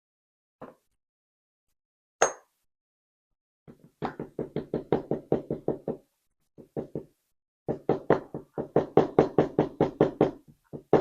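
Rapid runs of light, sharp knocks at about eight a second, in two bursts after a couple of single clicks, from the small parts of a gutted pin-tumbler lock being handled and tapped on a work surface.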